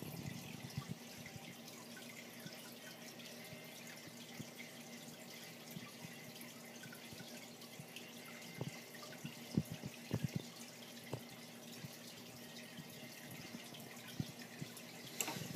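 Steady trickling and splashing of water in a running freshwater aquarium. A few soft low knocks sound around the middle and again near the end.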